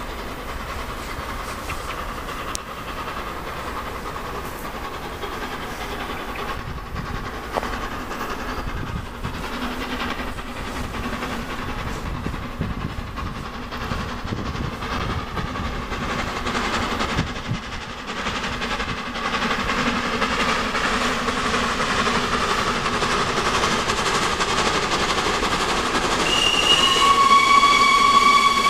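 Steam locomotive hauling a train under steam, its running growing steadily louder as it approaches. About two seconds before the end it blows its steam whistle: a brief high note, then a long, steady lower note.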